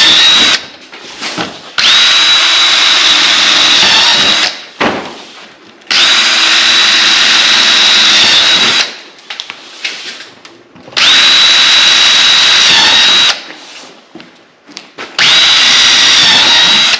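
Power drill with a big bit boring bolt holes. It runs in bursts of two to three seconds with a steady high-pitched motor whine, four times after the first run stops, with short pauses and light clicks and knocks between holes.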